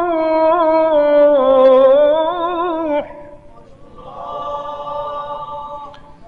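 A male Quran reciter holding one long melodic note with a wavering ornament, in the drawn-out chanted style of Quran recitation. It breaks off about three seconds in. A softer held voice follows for about two seconds.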